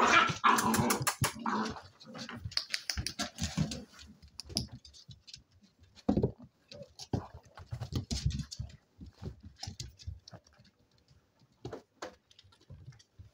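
Spaniel puppies' claws clicking and scrabbling on a wooden floor as they play, as a run of short, irregular ticks and scuffles. A denser, louder flurry of noise fills the first two seconds.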